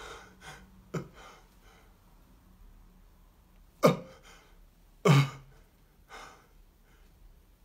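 A man's short, sharp wordless vocal outbursts, theatrical cough-like or sob-like cries. Three loud ones come about a second, four seconds and five seconds in, each sudden and quickly dropping in pitch, with fainter ones between them.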